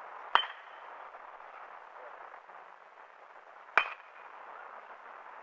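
Metal baseball bat hitting a pitched ball twice, about three and a half seconds apart: each a sharp ping with a short ring.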